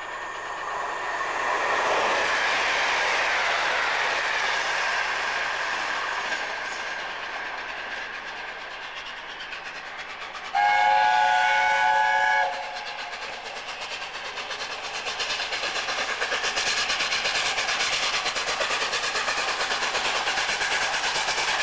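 LNER A4 Pacific steam locomotive approaching at speed with its train; about halfway through its chime whistle sounds once for about two seconds, several notes together. The running noise of the engine and coaches then builds steadily, with a fast, even beat, as it comes close.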